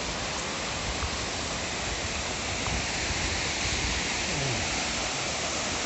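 Waterfall and the stream below it rushing, a steady hiss of falling and running water. The fall is running high with spring snowmelt.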